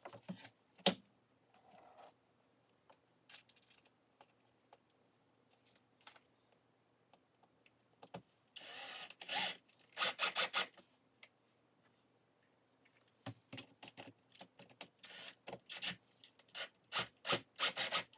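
Cordless drill fitted with a Phillips bit driving large screws through a cabinet hinge into the case, run in short bursts: a brief whine breaking into rapid pulses about halfway through, then a longer run of short pulses in the last few seconds. Light clicks of screws and hinge hardware being handled before that.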